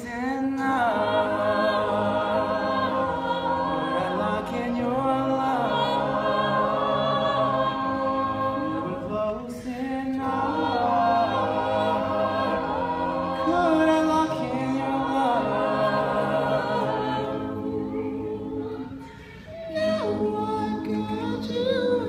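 Mixed-voice a cappella group singing in close harmony, sustained chords with no instruments. The singing drops away briefly about halfway through and again near the end.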